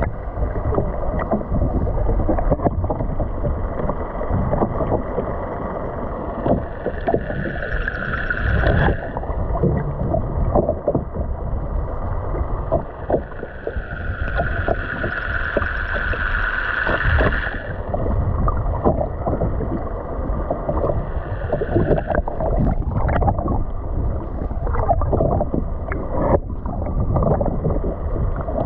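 Water sloshing and gurgling around a fishing boat, with wind and many small knocks, loud and unbroken. A higher steady whine comes in twice, once for about two seconds and later for about three seconds.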